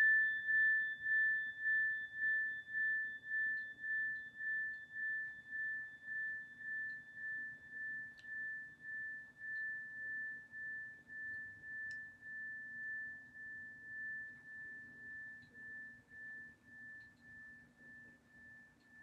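Metal tone bar on a wooden resonator block, a single-note chime tuned to A, ringing on after being struck as one clear high tone. The tone wavers in loudness about twice a second and fades slowly, still faintly audible at the end.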